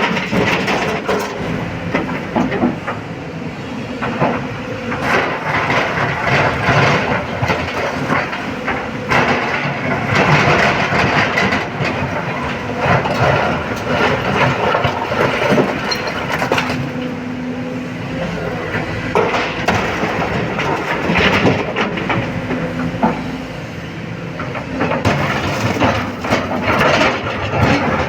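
Excavator's diesel engine working under load, with rocks and stones clattering and banging as they are loaded into a dump truck's steel bed. The engine tone rises and falls with the digging and swinging.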